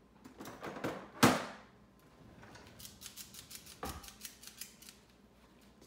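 Metal kitchen utensils clattering in a drawer as someone rummages through it, with one loud clank about a second in. A dull knock comes about four seconds in, among lighter clicking.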